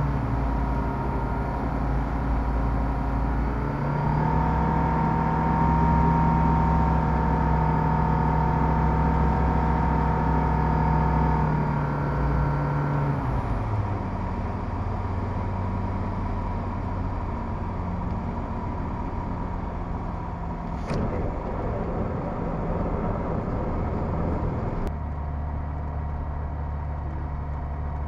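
Light aircraft's piston engine and propeller running, heard from inside the cockpit. The power comes up about four seconds in, then is pulled back around twelve seconds in for the landing, after which it runs at a lower, steady setting while taxiing.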